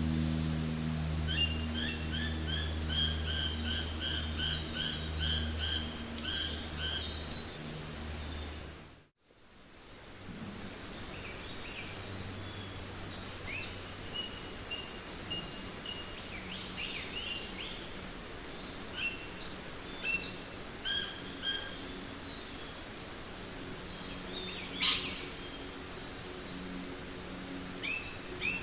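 Several songbirds singing and chirping in a row of quick repeated notes, over a low steady hum that lasts the first nine seconds. The sound dips to silence briefly about nine seconds in, then the birds carry on more sparsely, with one loud sharp call near the end.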